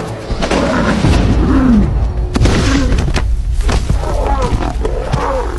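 Lions calling, several short calls that fall in pitch, over a steady low rumble.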